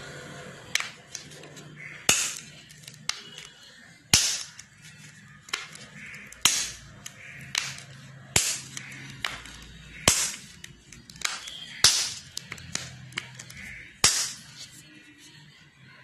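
Plastic bottle-bottom domes of a homemade pop-it fidget toy pressed by thumbs and flipping through, giving sharp pops about once a second, every other one louder.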